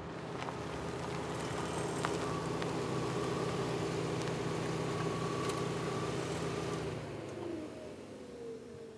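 A motor vehicle's engine goes past. It grows louder, holds a steady pitch for several seconds, then fades about seven seconds in as its pitch drops.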